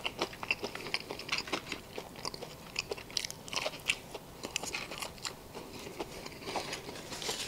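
A person chewing and biting crunchy food, with irregular crisp crunches and mouth sounds.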